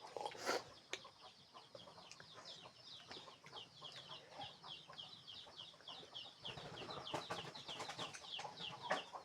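Small birds chirping continuously in quick, high, downward-sweeping peeps, several a second. There is a single sharp crunch about half a second in.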